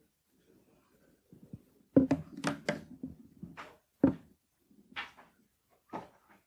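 A series of sharp knocks and clicks as equipment is handled at a lectern, with a cluster of clattering knocks about two seconds in, another loud knock about four seconds in, and lighter ones after that.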